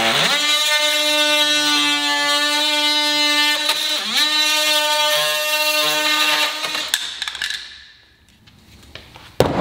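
Cordless DeWalt oscillating multi-tool buzzing at a steady high pitch as its blade cuts through an air-conditioner window-kit panel. The pitch sags briefly a little past halfway under load, then the tool switches off about three-quarters of the way through and winds down.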